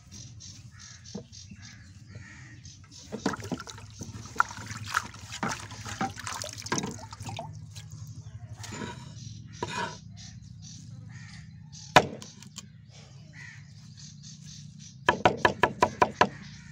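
Fresh mint being rinsed by hand in water in an aluminium bucket, with splashing and drips, then chopped with a cleaver on a wooden board: a quick run of knocks, about four a second, near the end.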